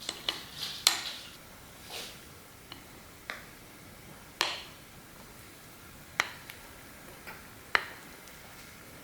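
Kitchen utensils and dishes tapping and clinking: about ten light, irregular clicks and knocks, a few with a brief ring.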